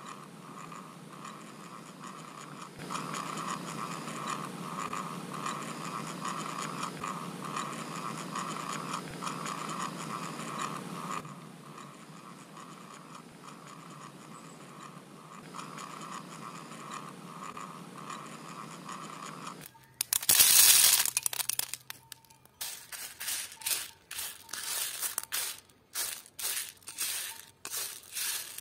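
Cordless drill with a long bit boring into a tree stump, its motor running steadily under load, louder for a stretch after about three seconds. About twenty seconds in, dried split peas rush loudly in a metal bowl for about two seconds, then click and rattle irregularly as fingers pick through them.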